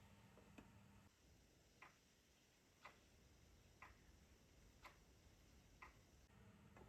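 Faint, evenly spaced ticks, about one a second, over quiet room tone.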